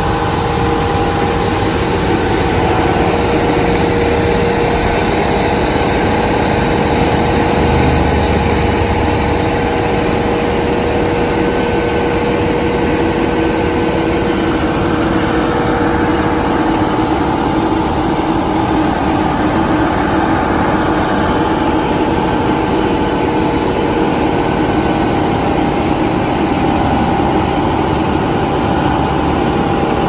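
Forestry mulcher running steadily, with a dense engine noise and a constant whine on top.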